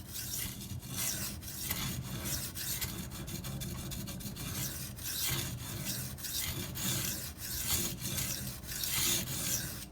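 Maxamet steel knife edge being drawn in quick repeated strokes across a coarse Venev resin-bond diamond sharpening stone, a steady scratchy rasp.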